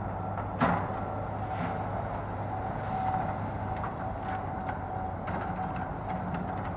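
Komatsu excavator's diesel engine running steadily while its arm tears down a wood-frame house, with knocks and crashes of breaking walls and timbers; the loudest is a sharp crash about half a second in.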